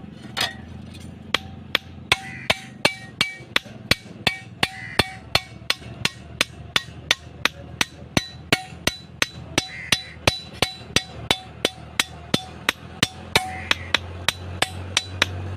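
Blacksmith's hammer striking metal on an anvil: a single blow, then steady hammering from about a second in, at about three blows a second. Each blow gives a short metallic ring.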